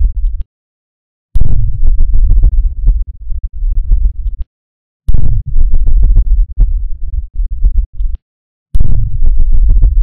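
Deep bass rumble sound effect: a loud, flickering electronic rumble heavy in the lowest bass. A burst ends about half a second in, and after a short silence new bursts of about three seconds begin near 1.4, 5 and 9 seconds in.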